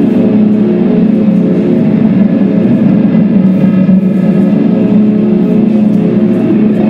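Music: a loud, dense, steady drone of sustained tones with no clear beat.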